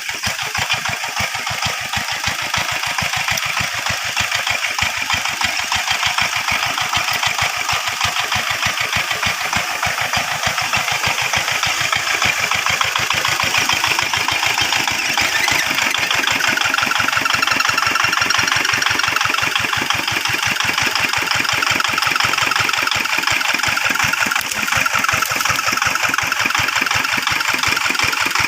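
Hand tractor (rice-field plough) engine running steadily, its firing strokes coming rapid and evenly spaced, slightly louder in the second half.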